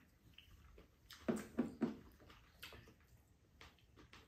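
Eating noises at a table: three short, sharp mouth sounds close together about a second and a half in, then a few fainter ones.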